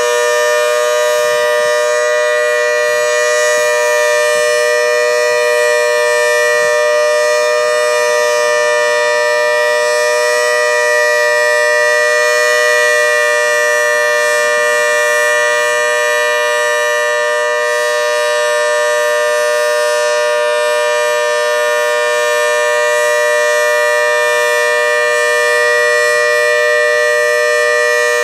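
Federal Signal Model 2T two-tone outdoor warning siren sounding its steady alert signal: two held tones at about 491 and 620 Hz together.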